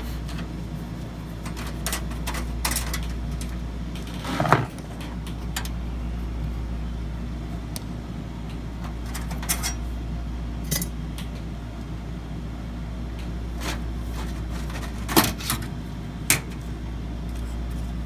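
Scattered small metallic clicks and clinks of hand work inside a desktop PC case as a video card and its metal bracket are taken out, the loudest clinks about four seconds in and again near the end, over a steady low hum.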